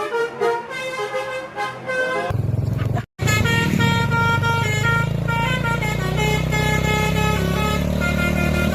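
Basuri musical bus horn ('telolet') playing a quick melody of short notes. After a brief cut about three seconds in, the horn melody goes on over the steady low running of a bus engine.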